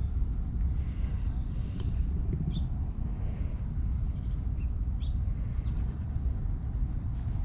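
Outdoor park ambience: a steady high drone of insects with short bird chirps coming every second or so, over a continuous low rumble on the microphone.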